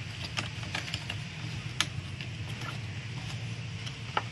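Scattered light clicks and knocks of plastic parts being handled as the air filter and plastic top cover are fitted back onto a chainsaw's engine, over a steady low hum.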